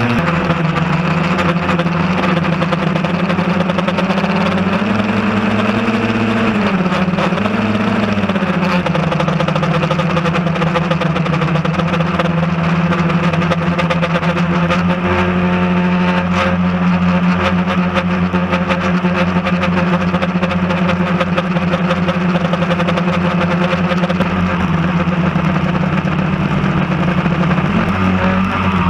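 Quadcopter drone's electric motors and propellers buzzing steadily, heard from a camera mounted right under the craft. The pitch rises and dips briefly about five to eight seconds in as the motors change speed.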